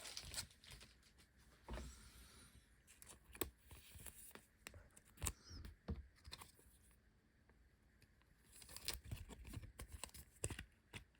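Faint handling of a trading card and its plastic sleeve and toploader: soft rustles, scrapes and light clicks, with a quieter pause partway through.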